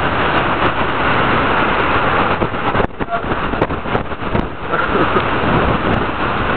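Hurricane wind blowing hard across the microphone: a loud, steady rush that eases briefly about three seconds in and then builds again.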